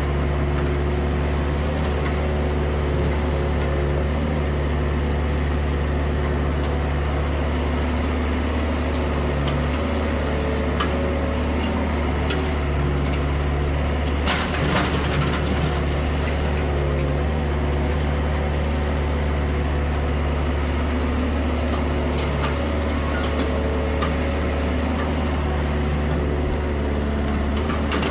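Hydraulic excavator's diesel engine running steadily at a work site, with scattered clanks and a brief clattering about halfway through.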